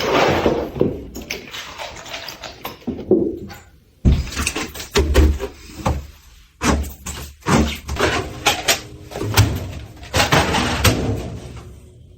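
A run of irregular knocks, bangs and clattering handling noises, loud and uneven, with a brief pause about four seconds in.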